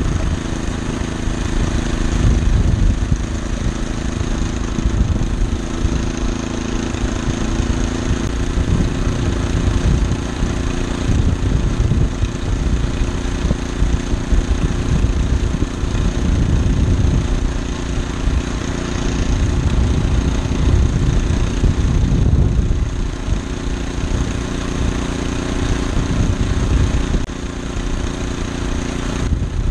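Small engine of a homemade motorized rail cart running steadily under way, with a low rumble from the cart rolling along the rails.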